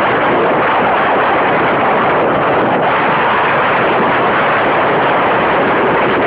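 Strong wind blowing over a phone's microphone: a loud, steady rushing noise with no let-up.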